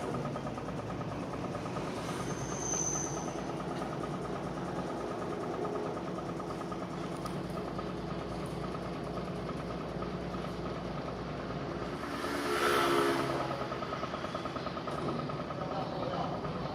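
Washing machine running with a steady mechanical hum and rumble: the abnormal noise of a machine that the owners say has shifted out of position and is likely off balance. It swells louder for about a second about twelve seconds in.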